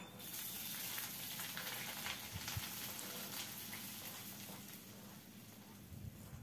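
Finely chopped onion going into hot oil in a steel kadhai and sizzling; the sizzle jumps up just after the start as the onion lands and slowly dies down as the oil cools around it.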